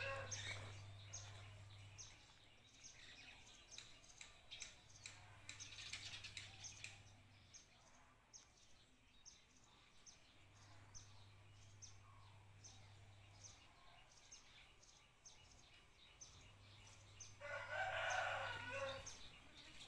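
A rooster crows once near the end, a faint crow of about a second and a half, over faint quick high chirps repeating in the background.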